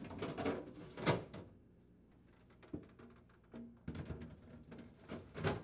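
Clear plastic refrigerator drawers sliding back in under the shelf: plastic scraping, with light knocks and clatters as they bump into place, most of them in the first second and near the end.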